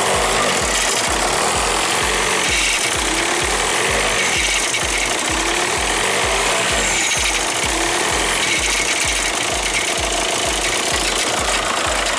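A 2006 VW Jetta's 1.9 TDI diesel idling in park with a steady, rhythmic knocking rattle from the dual mass flywheel between the engine and the DSG gearbox: the sign of a failing flywheel, a noise that goes away when the engine is given gas.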